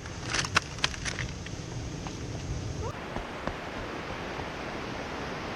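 Footsteps clacking on loose beach rocks in the first second or so, then a steady hiss of surf breaking on the shore.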